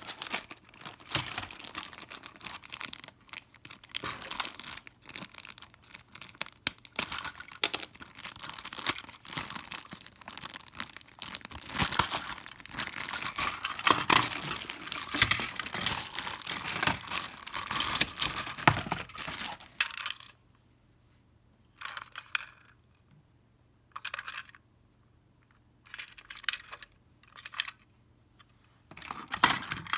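Toy train packaging being torn open and crinkled by hand: continuous tearing and rustling for about twenty seconds, then a few short rustles and clicks separated by quiet gaps.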